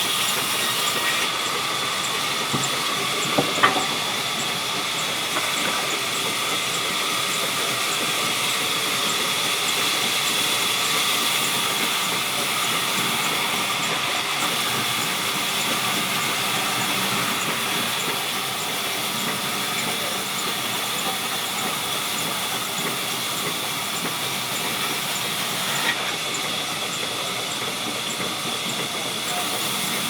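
Sawmill saw running steadily: a continuous hissing noise with a steady high tone over it. There are two sharp knocks about three and a half seconds in and another near the end.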